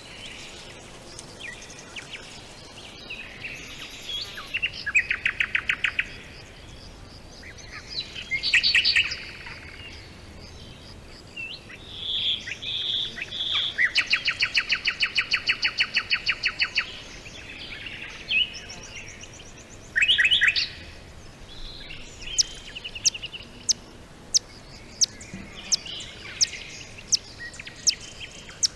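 Songbirds singing: several fast trills of rapid, evenly repeated notes and short bursts of song, then a run of single sharp high chirps about once a second near the end, over a faint steady hiss.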